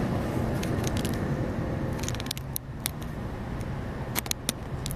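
Outdoor traffic rumble, low and steady, easing off about two seconds in, with a scatter of sharp clicks after that.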